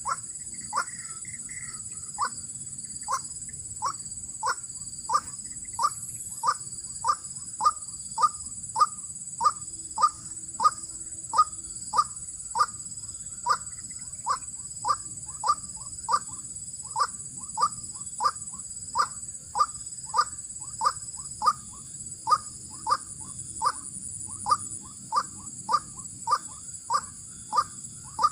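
White-breasted waterhen (ruak-ruak) calling over and over in a steady rhythm, short calls about one and a half a second, as used to lure a mate. A steady high-pitched drone runs behind.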